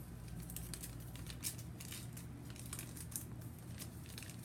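A sheet of origami paper being folded and turned over by hand, crinkling in short scattered crackles over a steady low hum.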